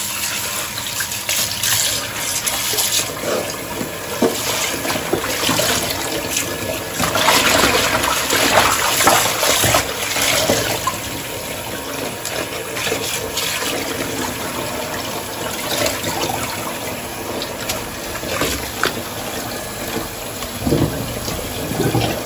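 Kitchen tap running into a sink while lettuce leaves are rinsed by hand under the stream, with splashing. The water is loudest between about seven and ten seconds in.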